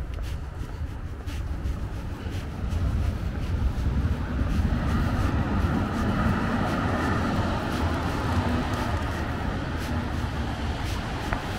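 City street ambience: a low rumble of passing traffic that swells from about four seconds in and eases off near the end, over faint footsteps of someone walking on paving stones.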